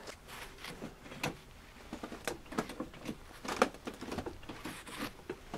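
Scattered light knocks and clicks of wooden boards being handled and set down among building timber, with a few sharper knocks about a second and a quarter, two and a half, and three and a half seconds in.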